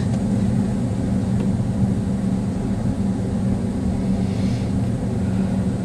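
Car cabin noise while driving at a steady speed: a steady low hum of engine and road noise.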